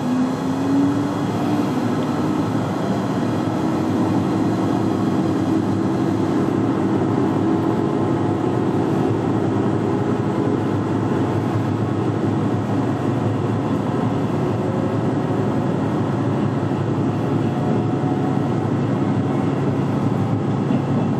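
Diesel railcar running along the line, heard from inside the passenger cabin: a steady rumble of wheels on the rails with an engine tone that rises in pitch over the first few seconds as the car picks up speed, then holds.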